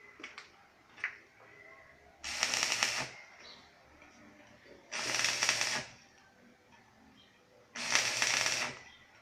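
Three short bursts of electric-arc crackle, each under a second, from a homemade welding machine built from a refrigerator motor, with a few sharp clicks in the first second.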